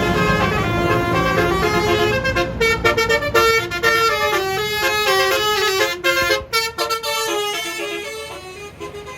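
Tour bus's basuri telolet horn playing a tune in quick stepped notes, with a bus engine's low rumble under it for the first couple of seconds. The horn grows quieter near the end.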